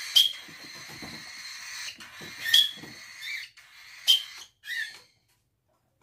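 A bird-training whistle blown in three short, sharp high toots spaced about two seconds apart, the cue for a young budgerigar to jump to the hand. Softer short high chirps fall between the toots.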